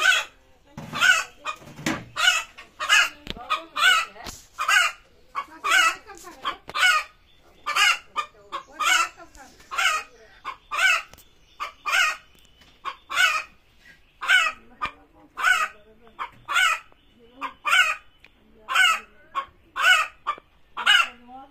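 A hen squawking in short, loud, high-pitched calls repeated evenly about twice a second: the insistent calling of a hen about to lay an egg.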